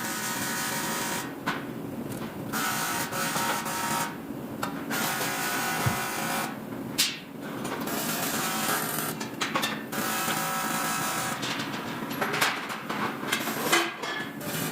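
AC TIG welding arc on aluminium, buzzing in short runs that start and stop every second or two, with a sharp click about seven seconds in.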